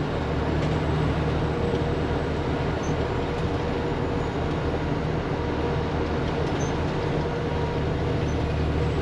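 Steady in-cab drone of a semi-style truck driving through a road tunnel: a constant low diesel engine hum under an even rush of tyre and road noise.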